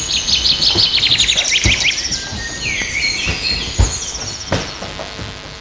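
Recorded birdsong played as a woodland sound effect: fast runs of high trilling chirps that slide down in pitch, with a few dull thumps, the loudest nearly four seconds in.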